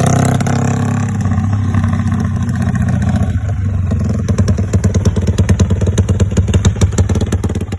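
Yamaha LC135 motorcycle's single-cylinder four-stroke engine, jetted with a 68 main jet, running through an NLK exhaust. It runs smoothly at first, then settles from about four seconds in into a lumpy idle with distinct, evenly spaced exhaust pulses.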